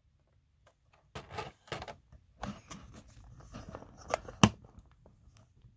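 Clear plastic blister tray being handled and moved: irregular light clicks and crinkles starting about a second in, with one sharper click late on.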